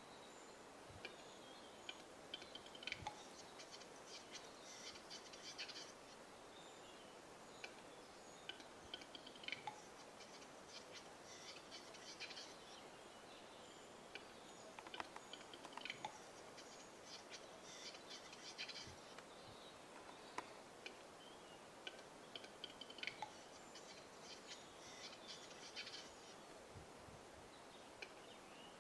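Western capercaillie cock's display song: faint dry clicks and scratchy whetting notes in short phrases, repeated every few seconds.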